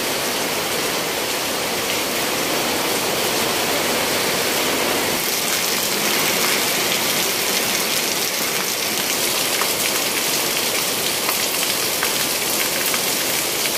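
Heavy rain falling steadily. About five seconds in, the sound turns brighter, with a close patter of drops on wet concrete.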